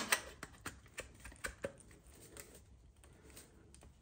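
Faint clicks and taps of metal on metal as the LeoVince LV10 exhaust's link pipe is pushed onto the Kawasaki Z900's collector outlet, a snug fit. The taps come thick at first and thin out over the last couple of seconds.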